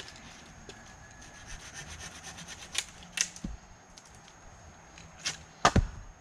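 Wood and soil scraping and rubbing, with scattered knocks, then a few sharp hatchet strikes into a wooden pole about five and a half seconds in.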